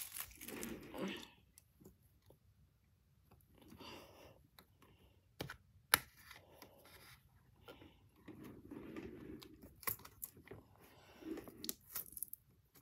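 Small juice box being handled while its plastic straw is pushed in: scattered faint crinkles and taps, with one sharp click about six seconds in as the straw goes through the box's foil-covered hole.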